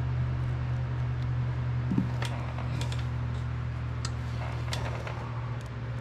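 Steady low mechanical hum, like a running fan, with a few faint clicks as wires and side cutters are handled.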